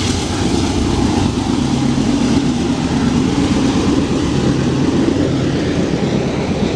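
Freight train passing close by: a loud, steady rumble with a low diesel engine drone.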